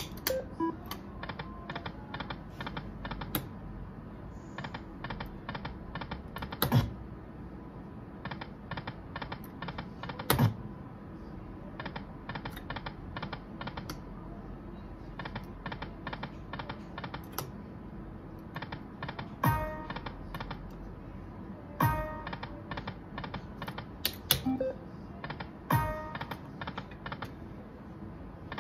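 Aristocrat Dragon Link Golden Century poker machine spinning its reels: runs of quick, evenly spaced electronic clicks, about three a second, as the reels turn. Each spin ends with a louder thud, some with a short chime, over several spins in a row.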